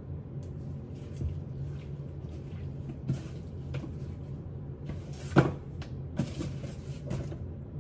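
Kitchen counter clatter: scattered short knocks and clicks of jars, lids and utensils being handled, the loudest about five and a half seconds in, over a steady low hum.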